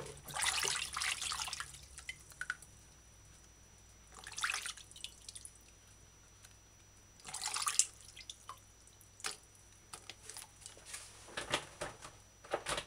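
Water splashing in a glass bowl as whole mushrooms are rubbed and washed by hand, in three short bursts, with a few light clicks near the end.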